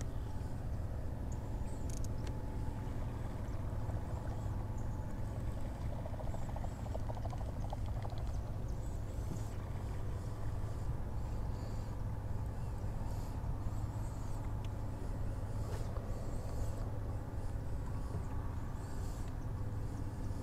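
Electric trolling motor running with a steady low hum.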